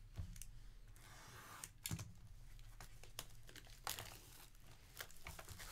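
Plastic shrink wrap on a sealed trading-card box being cut and peeled off: faint crinkling and tearing with scattered sharp clicks, loudest about two seconds in and again about four seconds in.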